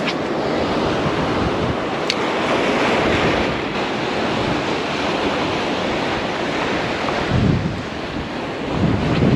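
Heavy surf breaking on a rocky boulder shore, with strong wind buffeting the microphone; low gusts swell about seven and a half and nine seconds in.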